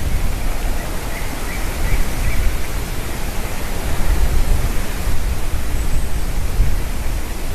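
Eaglets give a faint run of short, high calls about one to two and a half seconds in. A steady, loud rushing noise with a heavy low rumble lies under them.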